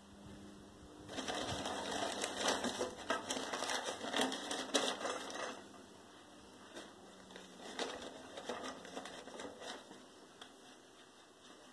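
Paper crinkling and rustling as newspaper and soaked cardboard are handled and packed into a paper log press. It is busiest and loudest from about a second in to halfway through, then turns to softer, scattered rustles.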